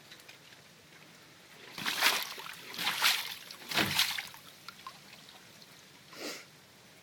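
Feet wading through shallow floodwater: three splashing steps about a second apart, then a fainter one near the end.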